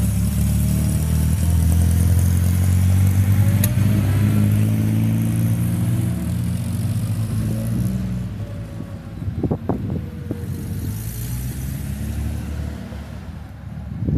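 A car engine running close by, its low note strong for about eight seconds and then fading away.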